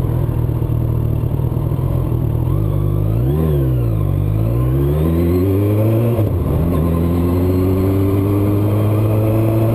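Suzuki Bandit 1200S inline-four motorcycle engine idling, then pulling away from a stop and accelerating. The pitch rises, drops at a gear change about six seconds in, and then climbs steadily again.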